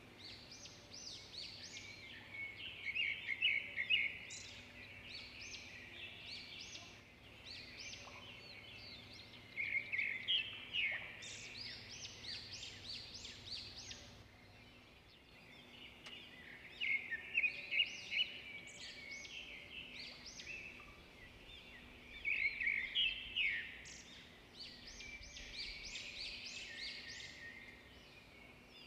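Birds chirping: bursts of rapid, high, short notes that come every several seconds.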